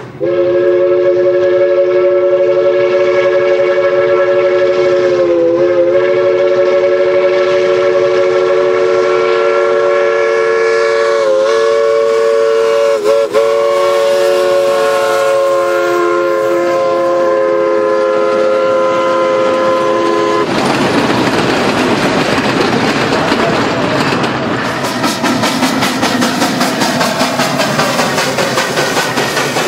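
Steam locomotive No. 18's chime whistle, a three-note chord, blown long and loud with a few brief dips, cutting off about two-thirds of the way through. The locomotive's working exhaust and the rolling train follow, with a quick beat in the last few seconds.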